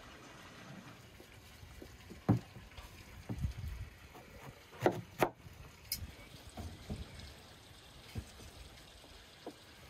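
Knife and hand work on a wooden cutting board: scattered knocks and taps as a quince is cut, the sharpest a little after two seconds and a close pair around five seconds, with lighter taps after.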